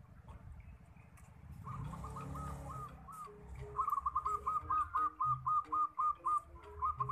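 A bird calling: a run of short, arching whistled notes, sparse at first and then about four a second through the second half.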